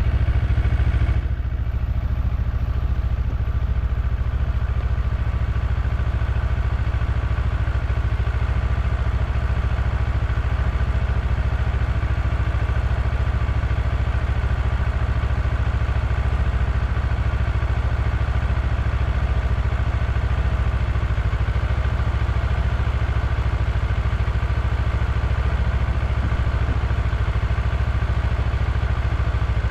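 Vehicle engine running steadily while under way: a loud, low drone that dips slightly about a second in and then holds even.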